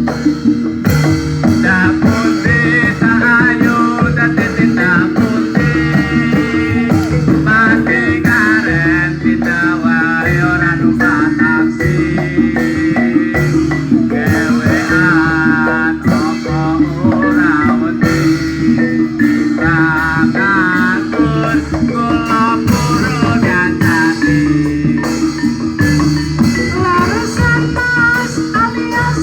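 Loud, amplified gamelan-style music accompanying a Barongan dance: a steady drum pulse under ringing metallophone notes, with a warbling melody line on top.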